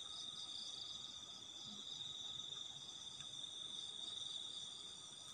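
Night chorus of crickets and other insects: a steady high-pitched trill with fainter pulsing chirps above it.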